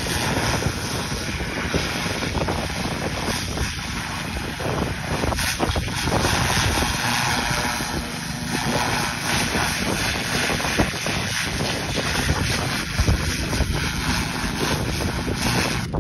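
A 3200 psi pressure washer with an oscillating nozzle blasting a steady, loud hiss of cold water against a coyote hide as it strips the flesh. Wind buffets the microphone under the spray. The spray cuts off suddenly at the very end.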